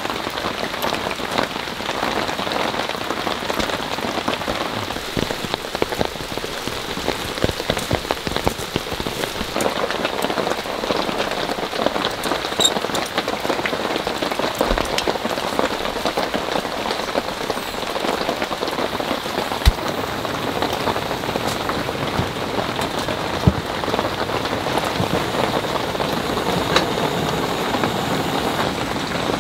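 Steady, fairly heavy rain falling on a Kazmi X9 tent, much of it dripping from the trees overhead onto the large tent surface. There is a dense stream of small drop ticks, and twice later on a louder single drop strikes.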